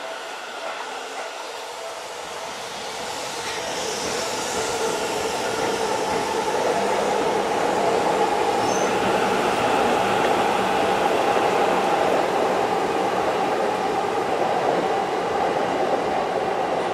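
Seibu 30000 series electric commuter train running alongside the platform. Its wheel and motor noise grows louder over the first several seconds, then holds steady.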